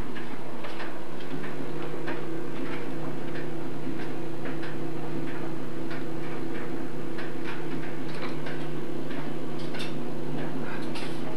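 A steady low hum with faint, irregular clicks and ticks scattered through it.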